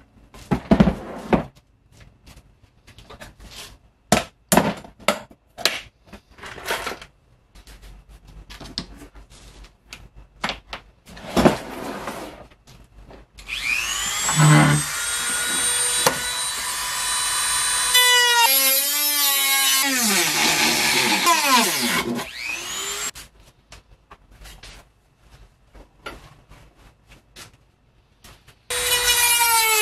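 Handheld rotary tool with a cutoff wheel cutting a fiberglass shell: after some clicks and knocks of handling, it starts with a sudden high whine about halfway through and runs steadily. Then its pitch wavers and sags, and it stops; near the end it starts again.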